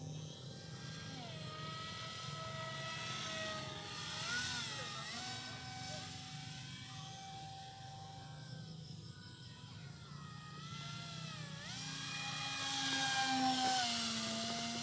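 Small brushless electric motor (2212, 2200 kv) spinning a three-blade 6×4 propeller on a foam RC airliner in flight: a buzzing whine whose pitch slides up and down several times.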